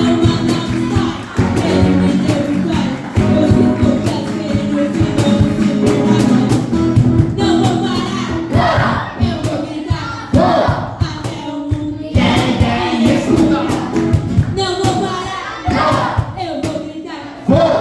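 A group singing a Christian worship song together over instrumental accompaniment, with regular sharp percussive strokes running through the music.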